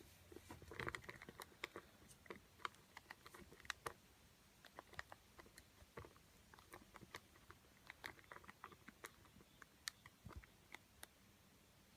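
Faint, irregular clicks of a Nokia 6070 mobile phone's keypad buttons being pressed.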